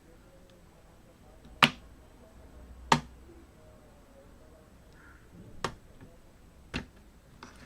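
Sharp plastic clicks from a laptop keyboard being lifted off its top cover while its plastic studs are melted free with a soldering iron: four separate clicks a second or more apart, the first two the loudest.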